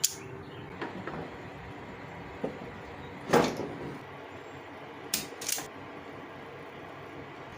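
Scattered clicks and knocks of parts and tools being handled during reassembly. The loudest knock comes about three and a half seconds in, and two sharp clicks follow a little after five seconds.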